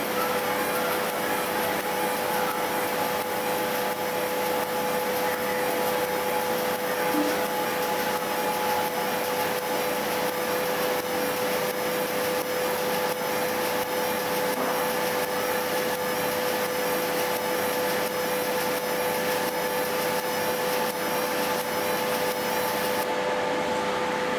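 30 W fiber laser marking machine deep-engraving copper: a steady hiss with a constant hum underneath. Near the end the highest part of the hiss drops away as the beam stops firing, leaving the hum.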